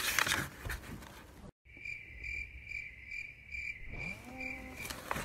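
Paper pages of a repair manual rustle as they are handled. After a sudden moment of dead silence about a second and a half in, a cricket chirps steadily at about two and a half chirps a second, like a dropped-in "crickets" sound effect, and stops near the end.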